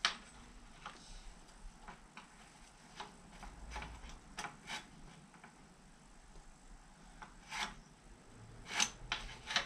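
Scattered light clicks and taps of small metal throttle-linkage parts being handled and fitted by hand on a David Brown 996 tractor engine, with a few sharper clicks near the end.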